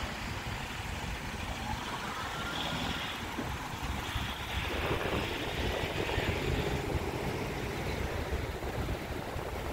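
Street traffic: cars driving past on a town road, a louder pass about halfway through, over steady low wind rumble on the microphone.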